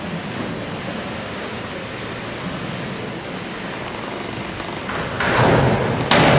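Steady hiss of an indoor pool hall's background noise, even and unbroken. About five seconds in, a louder rush of noise lasts about a second, and a sudden loud sound starts just before the end.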